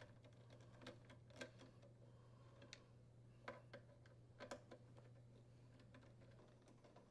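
Faint, scattered clicks of a T25 Torx bit working the screws out of the latch plate and backing plate on a dryer's inner door, over a steady low hum.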